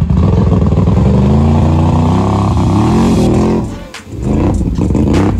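ATV engine revved hard through deep mud, its pitch climbing steadily; about four seconds in the revs drop away briefly, then the engine comes back up to full throttle.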